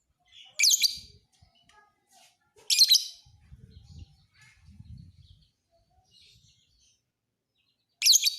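A lovebird singing in short, shrill, rapid bursts of chirps: three loud bursts, about a second in, near three seconds and at the end, with fainter twittering between.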